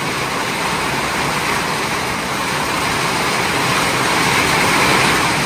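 Heavy rain with large drops pouring down, a steady loud hiss that swells a little about four seconds in.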